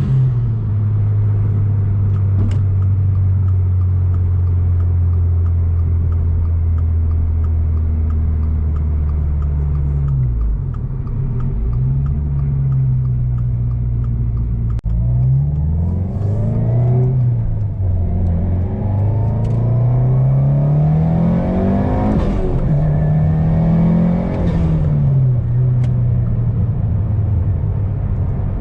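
Turbocharged 2022 Subaru WRX, its 2.4-litre flat-four fitted with a Garrett G30-900 turbo, cruising at a steady engine speed for about ten seconds, then accelerating in several pulls, the engine pitch climbing and dropping back at each gear change.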